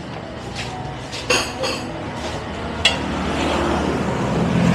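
Tableware clinking a few times: one ringing clink about a second in and a sharper one near three seconds, over steady background noise that grows louder near the end.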